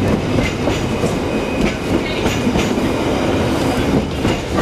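Electric streetcar running on its rails, heard from on board: a steady rumble with irregular clicks and clatter from the wheels on the track.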